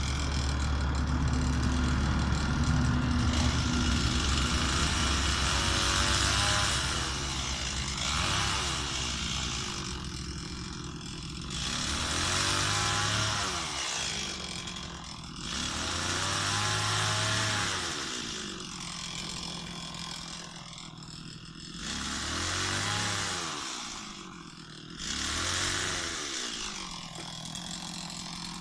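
Stihl MS 260 two-stroke chainsaw running, revved up to high speed and let back down to a lower speed several times, its pitch rising and falling with each burst of throttle.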